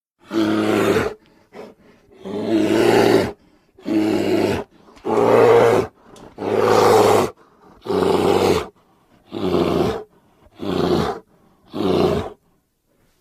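A person's voice making a series of roar-like vocal sound effects in the style of a cartoon vampire character: about nine separate bursts, each under about a second, with short silences between.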